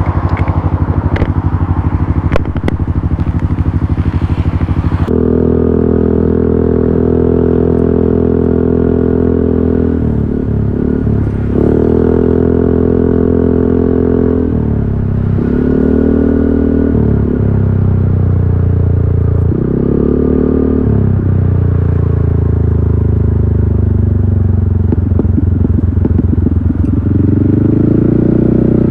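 Yamaha XMAX 300 scooter's single-cylinder engine through a GP Racing aftermarket exhaust, ticking over with a low, even pulse for about five seconds, then opening up as the scooter pulls away. The exhaust note then falls and rises again several times as the throttle is eased and reopened.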